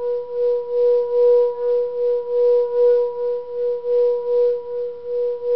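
Singing bowl sung by rubbing around its rim: one steady ringing tone with fainter higher overtones, swelling and fading a few times a second as the rubbing goes round, over a faint scraping of the rim.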